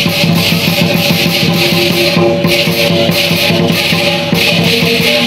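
Lion-dance music: rapid, continuous percussion with cymbal-like strokes several times a second over a steady ringing tone.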